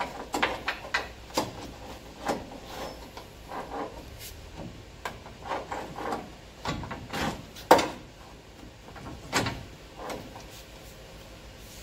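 A long hand tool working on the torsion bar crossmember and key hardware under a pickup truck: irregular metallic clicks and clunks. The sharpest clank comes about two-thirds of the way through.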